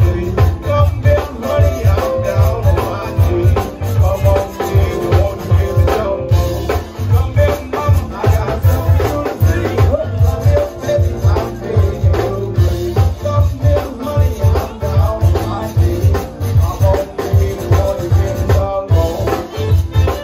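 Live zydeco band playing an instrumental passage: accordion, electric bass, electric guitar and drum kit over a steady beat.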